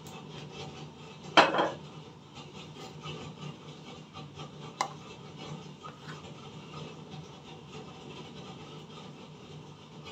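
Kitchenware handled at a gas stove: one loud clatter about a second and a half in, then a sharp click near five seconds, over a low steady hum.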